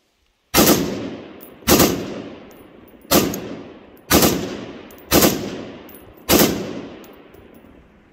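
Six gunshots about a second apart, each followed by a long echo that dies away.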